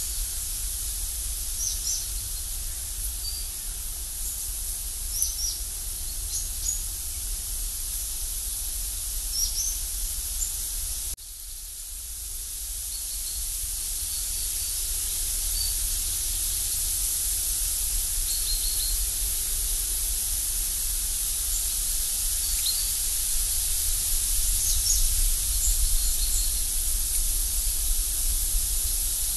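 Outdoor woodland ambience: a steady high hiss with many short, thin bird chirps scattered throughout, over a low rumble. About eleven seconds in the sound cuts and drops, then the hiss slowly builds back up.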